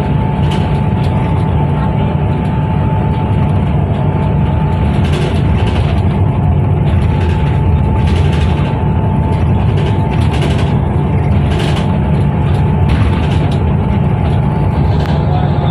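Transjakarta bus running, heard from inside the cabin: a steady engine and road rumble with a steady whine over it, and a few rattles along the way.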